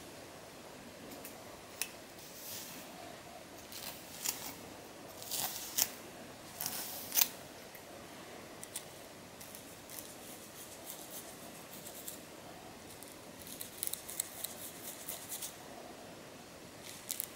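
Scratching at a dandruff-flaked scalp through the hair: irregular short, dry scratchy strokes, bunched a few seconds in and again near the end.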